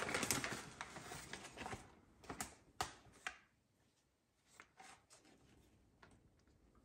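Plastic bag of frozen ravioli crinkling as it is handled, then a few sharp clicks and taps as frozen ravioli are laid into a foil pan. The sound drops to dead silence for about a second midway, then faint ticks follow.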